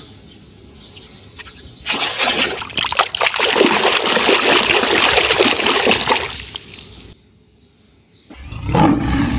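Water splashing and sloshing in a tub as a hand scrubs a mud-covered plastic toy lion. It starts about two seconds in, runs loud for several seconds and stops about seven seconds in. A short, loud, deep sound comes near the end.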